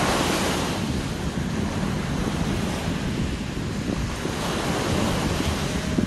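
Sea waves breaking and washing in, a steady rush of surf with wind buffeting the microphone. A wave breaks with a louder hiss right at the start, and another swells up about five seconds in.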